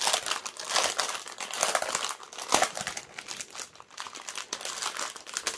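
Clear plastic packaging crinkling irregularly as a wrapped bundle of small bagged diamond-painting drills is handled and turned over in the hands.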